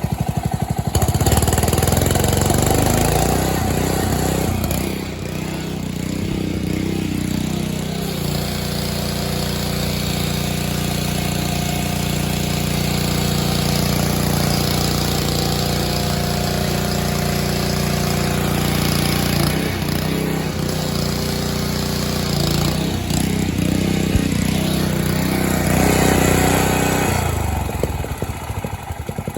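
Honda GC160 single-cylinder pressure-washer engine running steadily, its pitch shifting up and down several times, with a steady hiss over it.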